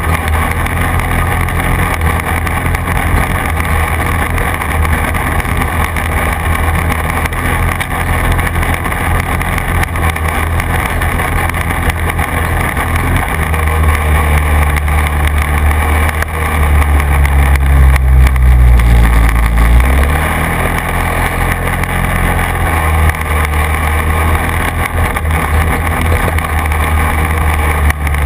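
Quad bike (ATV) engine running while riding over grass tracks, with a steady low engine note. It gets louder about three-fifths of the way in, and the note dips and then climbs again shortly after.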